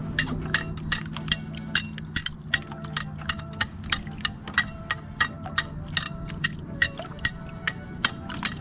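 A long-handled scraper striking the barnacle-crusted base of a concrete piling: a steady run of sharp clinking knocks, about two or three a second, knocking barnacles loose to draw sheepshead.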